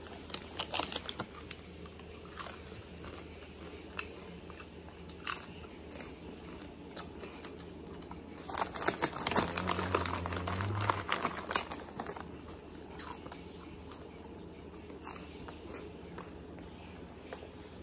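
Red Rock Deli potato chips being bitten and chewed: scattered crisp crunches, with a dense run of crunching from about eight and a half to eleven seconds in.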